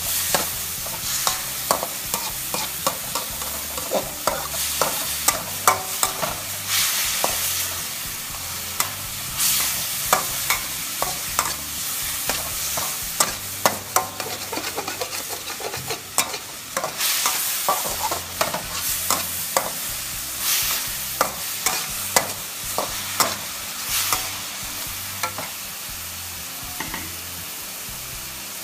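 Metal wok spatula scraping and clanking against a metal wok as sliced pork is stir-fried, over a steady sizzle of frying. The strokes come in quick, irregular runs and die away near the end, leaving only the sizzle.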